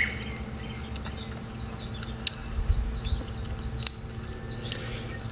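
Small birds chirping over and over, short quick falling calls, with a few sharp clicks in between.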